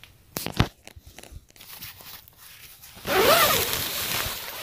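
Tent door zipper pulled open in one long stroke about three seconds in, its pitch rising and falling as it runs, after two light knocks near the start.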